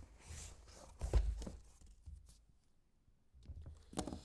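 Cardboard boxes of sports cards being handled on a table: a few knocks and rustles, the loudest thump about a second in and another near the end.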